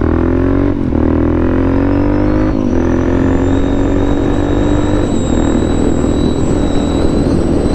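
Motorcycle engine under way, its pitch climbing slowly with brief breaks at gear changes about one, two and a half and five seconds in, then holding steady, over a low wind rumble.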